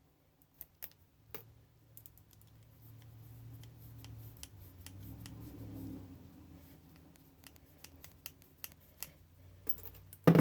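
Small pliers working on metal and plastic scrap parts, giving a scatter of sharp clicks and snaps, with a low rumble of handling in the middle and a louder knock near the end.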